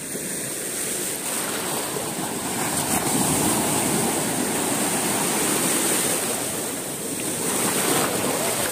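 Sea waves breaking and surf washing through the shallows: a steady rush of water that grows louder about three seconds in.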